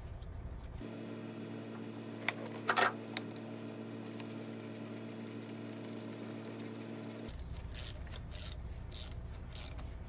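Small socket ratchet clicking in quick, even strokes as the bolt of a fuel injector hold-down clamp is run down into the engine, with a few sharper metallic taps of the tool. The clicking grows louder in the last few seconds, over a steady low hum through the middle.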